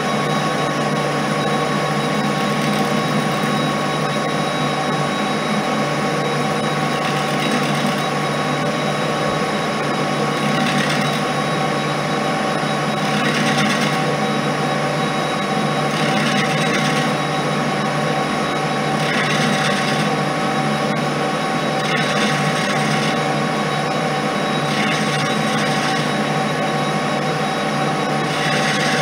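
Colchester lathe running steadily, its geared headstock giving a constant whine, with short hissing swells about every three seconds.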